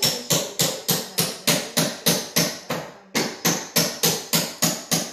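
Scissors snipping rapidly through a thin sheet, a sharp cut about three times a second, with a brief pause about three seconds in.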